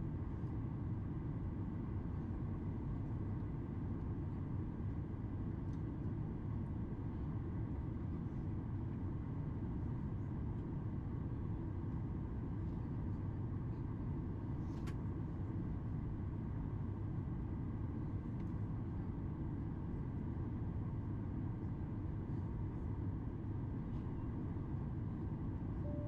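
Steady cabin noise inside a Boeing 737 MAX 8 descending on approach: a deep, even rumble of engines and airflow with faint high steady whines. A single brief click sounds about halfway through.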